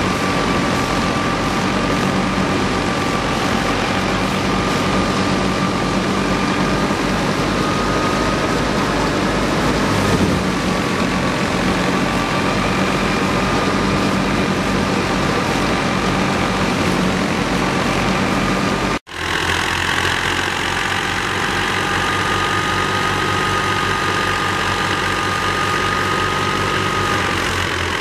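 Al Ghazi tractor engine running steadily under load, driving a wheat thresher, with a steady high whine over the engine noise. About two-thirds of the way in the sound cuts out for an instant and resumes.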